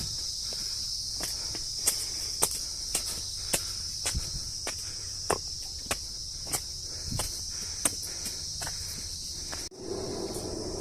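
Steady high-pitched drone of insects such as crickets, with footsteps crunching along a trail about twice a second. Both cut off suddenly near the end.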